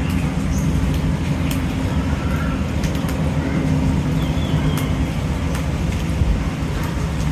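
A steady low rumble, with a humming tone that stops about five seconds in, and a few faint, short bird chirps over it.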